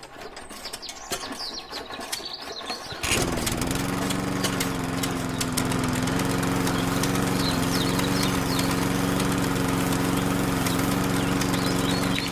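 A small motor starts suddenly about three seconds in, dips briefly in pitch, then runs at a steady speed with a steady hum.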